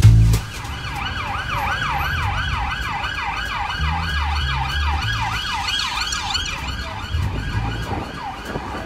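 Emergency vehicle siren on a fast yelp, its pitch sweeping up and down about three times a second, starting about a second in and fading near the end, over low street-traffic rumble. It opens on a last heavy beat of music.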